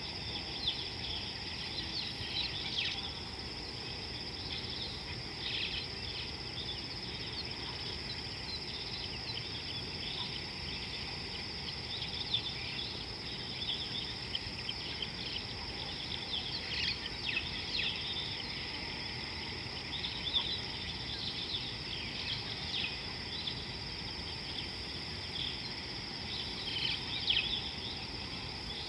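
Insects drone steadily at a high pitch, with scattered short bird chirps and twitters over them.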